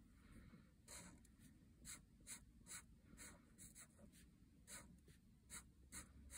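Black Sharpie fine-point marker drawing on paper: a faint series of short, quick strokes as short stripes are inked one after another, starting about a second in.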